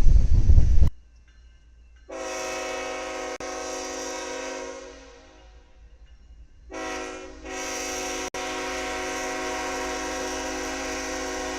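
Locomotive air horn sounding two long blasts, the second longer than the first, after a loud low rumble that cuts off abruptly about a second in.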